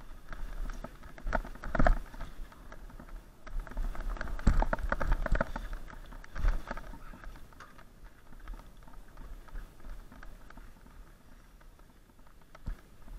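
Mountain bike rolling over rough, leaf-covered trail, heard through a bike-mounted camera: irregular rattling and knocks from the bike and mount jolting over the ground, loudest and busiest in the first half and calmer after that.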